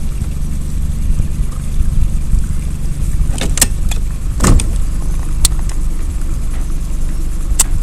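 A small boat's motor runs with a steady low hum as the boat moves slowly. A few sharp clicks and knocks cut through it, the loudest about halfway through.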